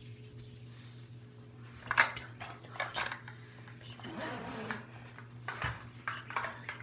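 Scattered taps and clicks of things being handled and tapped, the loudest a sharp knock about two seconds in, with another cluster of taps near the end.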